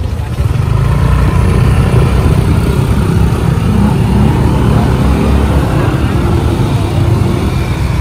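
Motorbike and scooter engines running as the riders move off along the road, with heavy wind rumble on the microphone from riding; it gets louder about half a second in and then holds steady.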